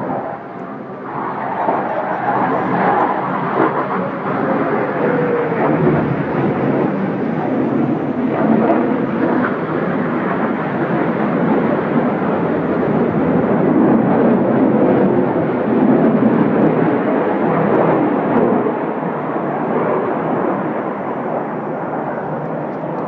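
Jet engine noise from Blue Angels F/A-18 Hornet jets flying past overhead. It swells about a second in and stays loud and steady, with a faint falling whine about five seconds in.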